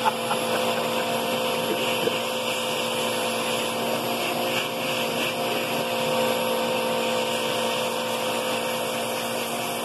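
Vacuum cleaner running steadily, its hose nozzle being drawn over a cat's fur.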